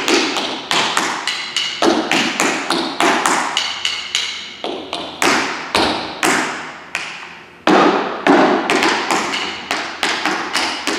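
Tap shoes striking a wooden floor in a quick, uneven run of paddles, heel and toe drops and shuffle ball changes, with short pauses, mixed with the click of drumsticks.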